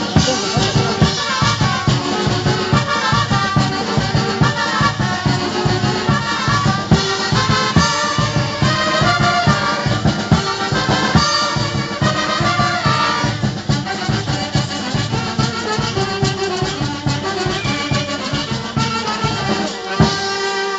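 Brass band music with a steady drum beat.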